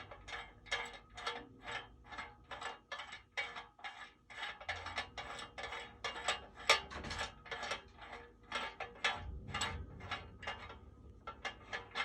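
Steady, evenly spaced mechanical clicking, about three clicks a second, from a hand tool being worked on a bike's bottom bracket.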